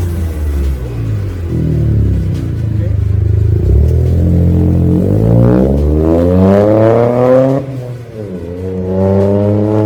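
Modified car engine revving hard as it pulls away: the engine note runs low at first, climbs steeply about halfway through, drops off sharply, then climbs again near the end, like a gear change under acceleration.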